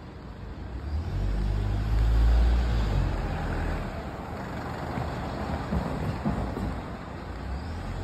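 City street traffic: a motor vehicle passes close by with a low engine rumble that swells about a second in, is loudest around two seconds and then fades into the general traffic noise.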